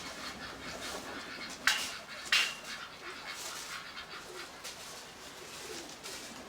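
Steady rain pattering, with two sharp clacks about two thirds of a second apart near the first third.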